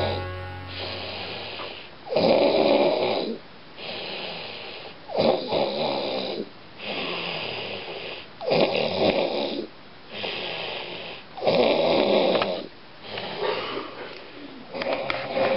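A drunk man snoring in heavy sleep: five loud snores about three seconds apart, with quieter breathing between them.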